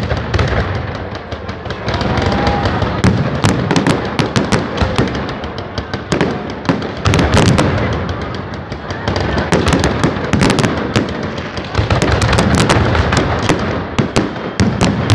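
Aerial fireworks display: shells bursting overhead in many sharp bangs in quick, irregular succession, without a break.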